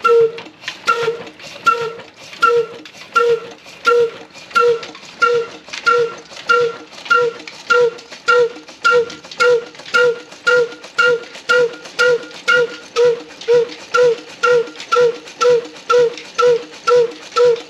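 Old black single-cylinder stationary diesel engine running and gathering speed just after starting. Its exhaust gives a hollow, tuned pop from the tall pipe on each firing stroke, at first about one every 0.7 s and quickening to about two a second.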